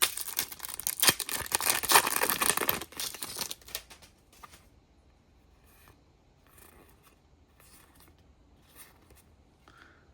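Foil booster-pack wrapper crinkling and tearing open for about three and a half seconds, then a few short, soft rustles of trading cards being handled, about one a second.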